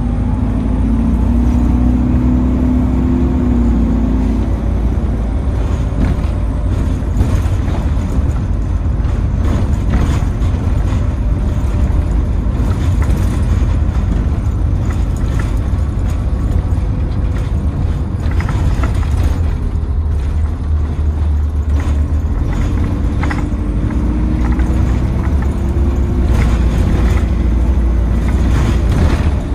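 Optare Versa single-decker bus heard from inside the passenger cabin while driving: a steady low engine and road rumble. The engine note fades after a few seconds and climbs again near the end, with scattered rattles and clicks.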